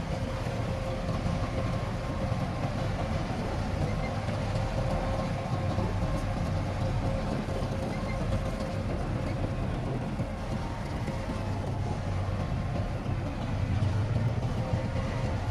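Heavy diesel earthmoving machinery running steadily: a low engine rumble with a faint steady whine above it.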